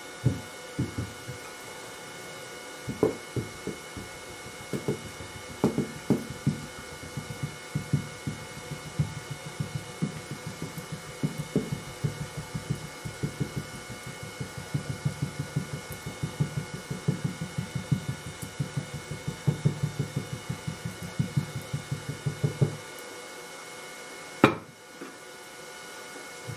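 Green sand being rammed into a wooden flask with a wooden rammer: a run of dull thumps that quickens to several a second, then stops, followed by one sharp knock near the end. A steady hum and hiss runs underneath.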